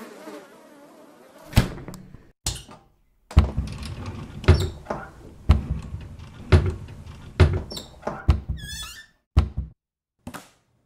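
Slow, heavy footstep thuds, about one a second, as a character walks through a dark house, with a brief high squeak near the end.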